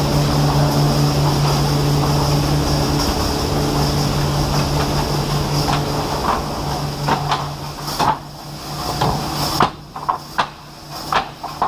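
Wood-processing machinery running with a steady hum, which fades after about seven seconds into a string of sharp knocks and clatter.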